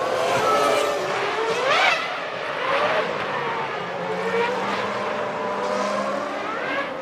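Formula One race cars' V10 engines at high revs, several at once. The engine note rises sharply a few times as they accelerate, then drops at each gear change.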